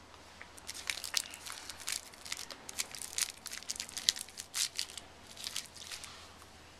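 Candy packaging being handled and crinkled, with irregular sharp crackles that thin out near the end.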